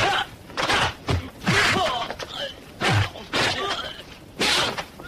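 Martial-arts film fight sound effects: a quick series of punch and kick impacts, about six in five seconds, with the fighters' short grunts and shouts between the hits.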